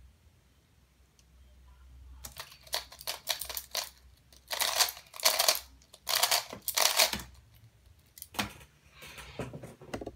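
Aoyan Skewb puzzle turned at speed during a timed solve: after a quiet start, about five seconds of fast plastic clicking and rattling as the corners are twisted, loudest in two spells before it stops about seven seconds in. A few lighter knocks follow near the end.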